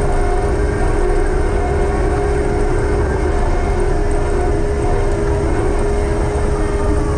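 Heavy diesel machinery running steadily under load, a constant rumble with a steady whine over it.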